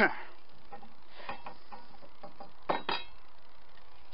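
L-shaped mild steel plate clinking as it is handled and set down on the bench: one sharp clink at the start, a few light taps, then two clinks close together near three seconds in.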